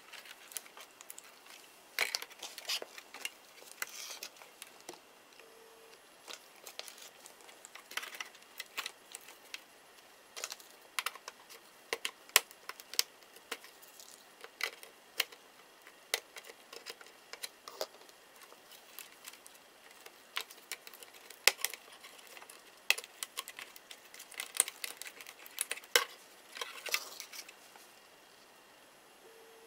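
Irregular small clicks, taps and short scrapes of hard plastic and metal parts of a Toshiba Satellite Pro L450 laptop being handled and taken apart.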